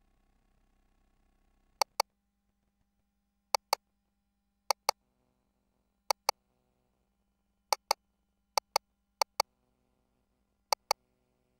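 Ultrasound scanner console giving short, sharp clicks in pairs, eight pairs at uneven spacing, as measurement calipers are set on the fetal head. A faint steady hum sits underneath.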